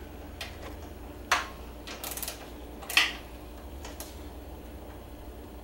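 Hand tools clicking and clinking against metal while the brake line banjo bolts are tightened. Two sharp metallic clicks stand out, about a second and a half apart, with a few lighter ticks around them.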